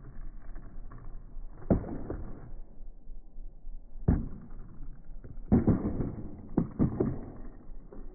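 Skateboard on asphalt: the wheels roll with a low, muffled rumble, broken by sharp clacks of the tail popping and the deck striking the pavement during flip-trick attempts: one about two seconds in, a louder one about four seconds in, and a cluster of several between five and a half and seven seconds.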